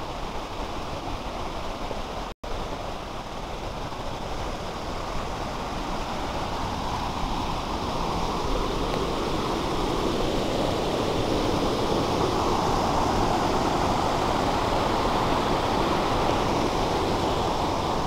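Waterfall: steady rushing of falling water that grows louder over the first half, then holds. The sound cuts out for an instant a couple of seconds in.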